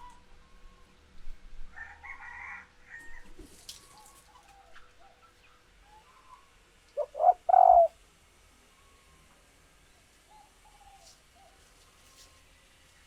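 Female spotted dove cooing: a softer call about two seconds in, then a louder coo about seven seconds in made of two short notes and a longer falling one, with faint small bird calls between.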